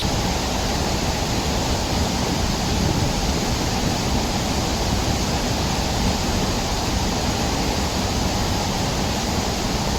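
Sgwd Yr Eira waterfall heard from close by: a loud, steady rush of falling water.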